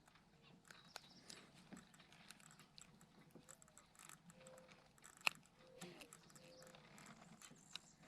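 Near silence with faint scattered clicks and ticks, and one sharper click about five seconds in.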